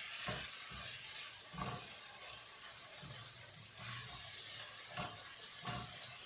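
Egg-roll filling with freshly added frozen peas sizzling in a hot frying pan, a steady hiss, with a few soft knocks of stirring against the pan.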